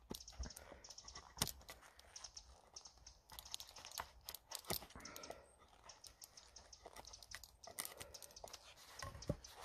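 Wood chisel paring shavings off the end of a debarked round stick to shape a tenon: an irregular run of short, crisp scraping and cracking cuts.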